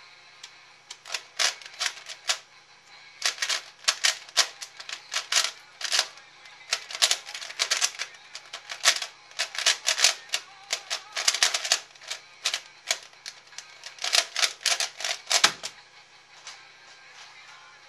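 A C4U 3x3x3 speedcube being turned fast in a timed solve: quick flurries of plastic clicking and clacking layer turns with short pauses between them. It ends with a single thump about fifteen and a half seconds in, as the cube comes down and the timer is stopped.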